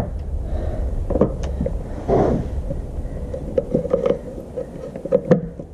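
Scattered light clicks and knocks of a plastic electrical junction box and its wires being handled and pressed against house siding, over a low steady rumble.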